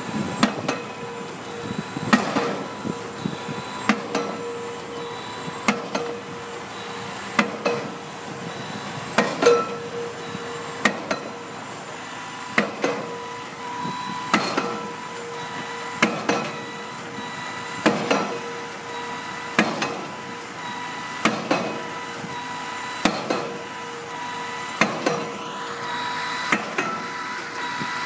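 Pile-driving hammer striking a pile in a steady rhythm, about one blow every second and three-quarters, over the steady hum of the rig's machinery.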